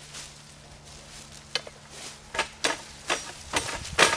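Dry leaf litter and brush crunching in a run of sharp rustles, coming more often and louder from about a second and a half in, loudest near the end.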